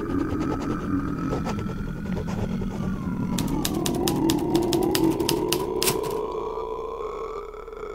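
Typewriter keystroke sound effect: a few clicks soon after the start, then a longer fast run of clicks from about three and a half to six seconds in. Under them is a steady low drone and a wavering high whistling tone that dips and rises midway.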